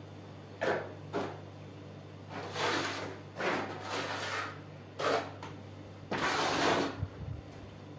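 Plastering trowel scraping and spreading wet plaster over a wall patch, in a run of strokes, some short and some longer. The longest and loudest stroke comes near the end.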